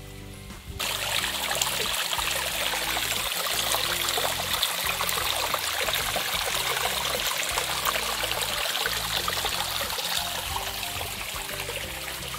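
Shallow stream water running in a thin sheet over a flat rock bed: a steady rushing trickle that comes in loudly about a second in.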